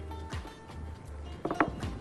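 Background music with a steady low bass line, and a few short knocks about one and a half seconds in.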